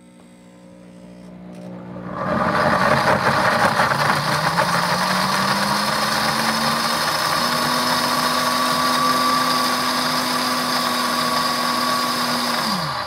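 Pampered Chef Deluxe Cooking Blender grinding cubes of Parmesan cheese on setting 9, its highest. The motor winds up over the first few seconds with a rising pitch, runs loud and steady while the blade churns the cheese, and spins down with a falling pitch right at the end.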